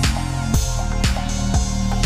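Electronic background music with a steady beat: a low drum about twice a second over held bass and melody notes.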